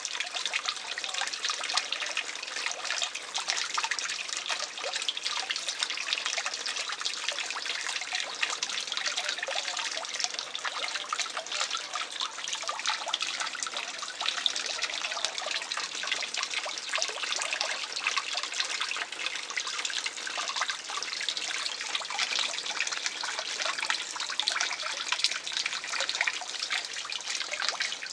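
Water trickling and splashing steadily into a garden fish pond, a continuous fine crackle of splashes with no change in level.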